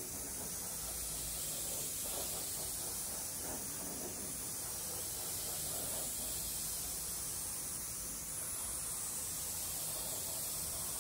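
Steady hiss of an Anest Iwata gravity-feed spray gun atomizing paint with compressed air.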